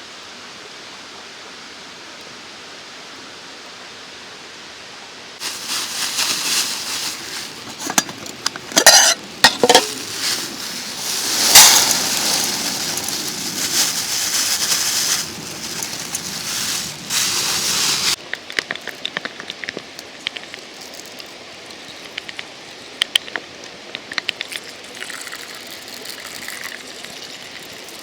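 Food sizzling loudly in a hot pan over a campfire, starting suddenly about five seconds in, with a couple of sharper spits. It stops abruptly near the middle, leaving quieter scattered pops over the steady rush of a mountain stream.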